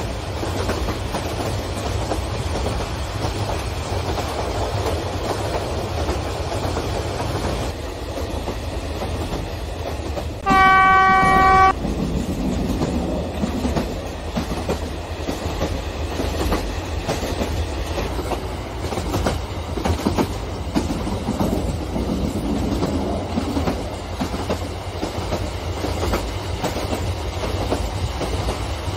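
Model trains (DF4D locomotives hauling long strings of passenger cars) rolling along the track with a steady rumble and clatter of wheels. A little over ten seconds in, a train horn sounds once for about a second, the loudest sound here.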